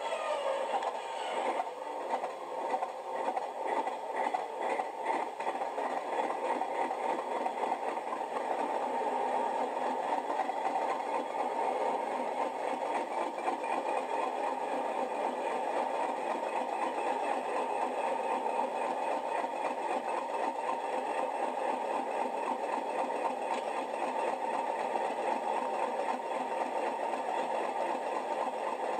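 Sound-decoder recording of a Class 37's English Electric V12 diesel idling, played through the model locomotive's small speaker. It runs unevenly for the first several seconds, then settles to a steady idle.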